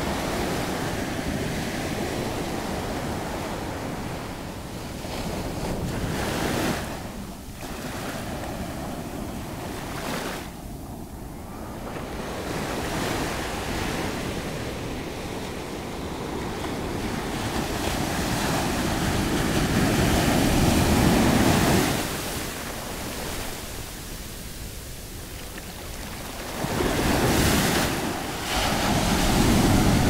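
Ocean surf breaking and washing up the sand, the rush swelling and ebbing with each wave, loudest about two-thirds of the way through and again near the end.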